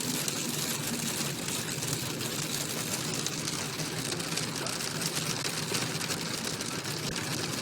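Rain falling steadily, a constant hiss of many drops.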